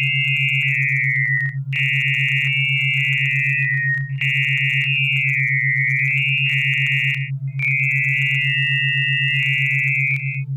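Synthetic test audio: a steady, rapidly pulsing low tone under a high electronic tone that shifts in pitch and stops briefly three times. The high tone is a word hidden in the sound, spelled out in capital letters (A, R, M, O) when drawn as a spectrogram.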